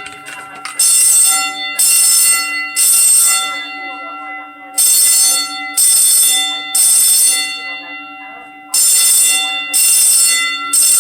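Building fire alarm bell ringing in groups of three loud rings about a second apart, with a pause of about two seconds between groups. This is the three-pulse evacuation signal.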